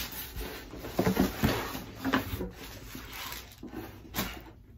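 Cardboard scraping, rustling and knocking as a long product box is pulled out of a cardboard shipping carton, in a run of irregular short clicks and bumps.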